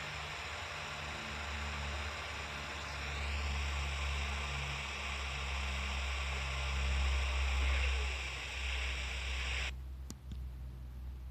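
Vacuum cleaner running with a steady rushing hiss, a motor whine that shifts up in pitch about 3 s in, and a deep rumble underneath; the hiss cuts off abruptly near the end, as when the cleaner is switched off, leaving the low rumble and a couple of clicks.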